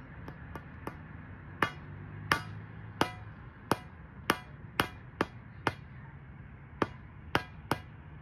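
A small mallet hammering on the top of a steel pry bar to drive it into the ground beside a tree stump: three light taps, then about eleven hard blows at roughly one to two a second, each with a short metallic ring.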